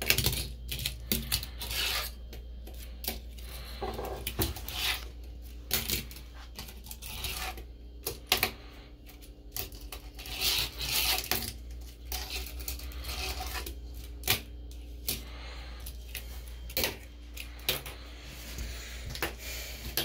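Tiny homemade fingerboard clicking and clattering on a porcelain sink under fingertips, its small wheels and deck knocking against the ceramic, with short rolling scrapes in between.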